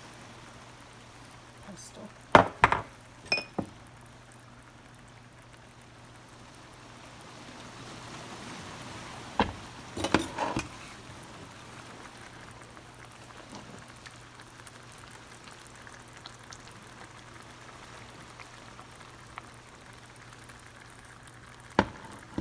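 Marinara sauce simmering in a stainless steel pot, a steady soft bubbling hiss over a faint hum. A few sharp knocks and clatters break in, a cluster a couple of seconds in, another around ten seconds in, and one near the end.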